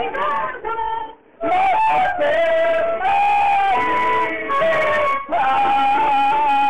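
Live clarinet and accordion music: a melody of long held notes, with a brief break about a second in.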